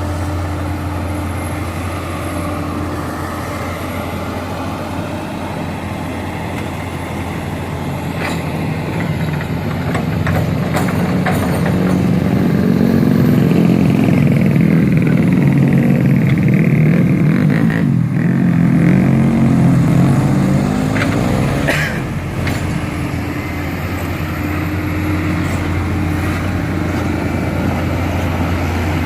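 Heavy diesel earthmoving machinery, an excavator working with dump trucks, running steadily. Partway through, the engine rises into a louder, heavier pull under load for several seconds, then settles back, with a few sharp knocks along the way.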